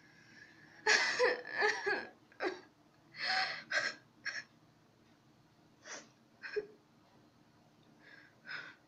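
A young woman's non-speech vocal sounds close to the microphone: a cluster of short voiced sounds about a second in, then a series of short, sharp breaths, sniffs or gasps spaced through the rest.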